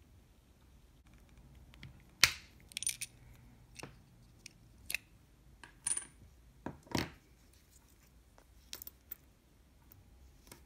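A watch's snap-on caseback prised off with a case knife: a sharp pop about two seconds in, then a string of light metallic clicks and clinks as the back and the watch are handled.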